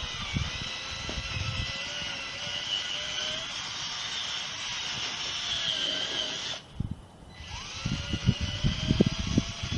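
Ryobi cordless drill spinning a buffing bonnet at low speed against a gutter, its motor giving a steady whine. The drill stops about two-thirds of the way through and then spins back up, joined by uneven low thumps.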